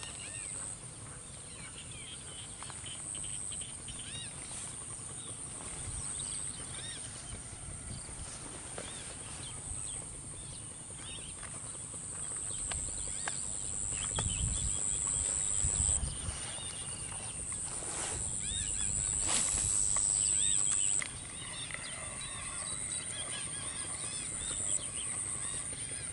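Outdoor insect chorus: a steady high-pitched drone that shifts slightly in pitch every few seconds, over many small scattered chirps. A low rumble of wind on the microphone swells midway.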